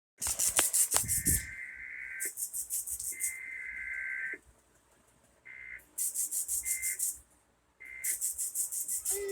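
Emergency Alert System SAME digital data bursts: a run of harsh, buzzy warbling bursts about a second each, with short gaps and a longer pause near the middle.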